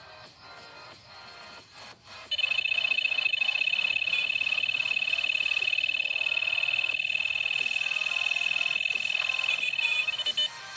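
High-pitched electronic buzzing tone, rapidly pulsing. It starts abruptly about two seconds in, holds steady for about eight seconds, and cuts off just before the end.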